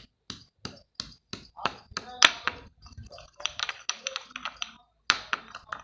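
Utensils clinking against kitchenware in quick sharp clicks, about three a second at first, then in denser clusters.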